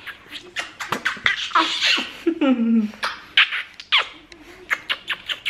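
Repeated kisses smacking on a baby's cheek, with short squeals and a falling voice sound between them.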